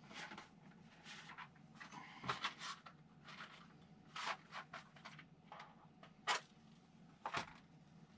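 A run of small, irregular knocks, clicks and scrapes from things being handled in a small room, with a louder knock about two seconds in and another about six seconds in.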